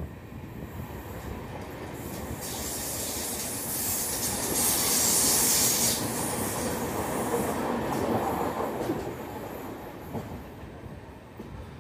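Passenger train's steel wheels running on the rails, heard from an open coach doorway as the train passes through a tunnel. The rumble swells about two and a half seconds in with a loud high hiss for a few seconds, stays loud, then eases off near the end as the train comes out into the open.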